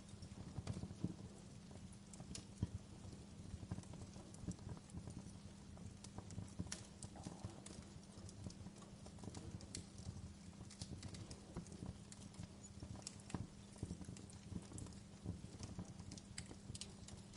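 Wood fire crackling, with irregular pops and snaps scattered throughout over a low steady rumble.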